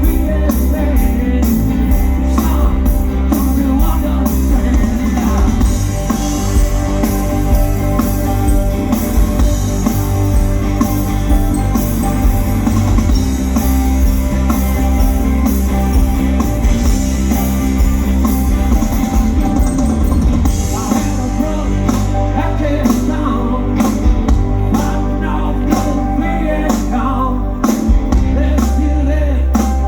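A rock band playing live, with drum kit, electric guitar and singing over a steady beat.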